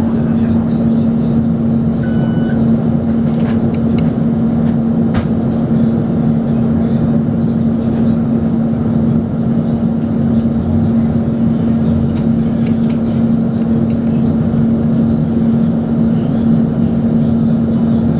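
Tram interior noise: a steady, even hum with a rumbling haze beneath it. A short high beep sounds about two seconds in.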